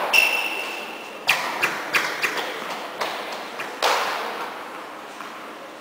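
Tennis balls knocking and bouncing on an indoor court in an echoing hall. A sharp knock with a short ring comes near the start. Then comes a run of bounces coming quicker and quicker as a ball settles, and a louder, echoing hit just before the four-second mark.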